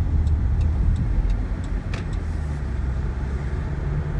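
Steady low road and engine rumble inside a moving car's cabin, with the turn signal ticking about three times a second until it stops a little under two seconds in.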